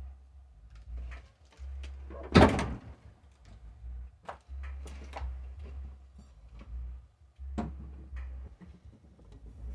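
One loud thunk about two and a half seconds in, among lighter clicks and knocks, over a low hum that cuts in and out.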